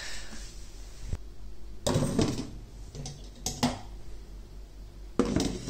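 Several separate light knocks and clicks of a bare amplifier circuit board being handled and set down in a stainless-steel sink, with a cluster of knocks near the end.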